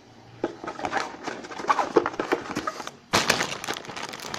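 Sealed plastic bags of LEGO pieces being handled: irregular crinkles and small clicks, with a louder burst of crinkling about three seconds in.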